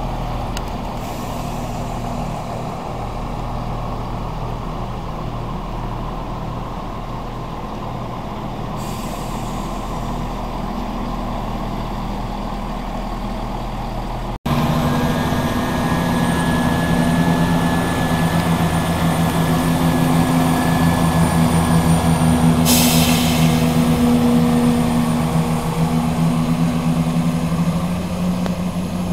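Diesel multiple unit's underfloor diesel engines idling with a steady drone. After a sudden break the drone is louder, with a steady hum, and a short hiss of compressed air comes about three-quarters of the way in.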